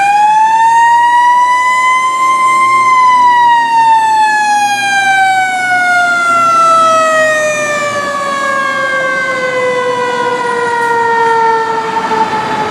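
Fire truck siren rising to its peak about three seconds in, then falling slowly and steadily in one long descending tone.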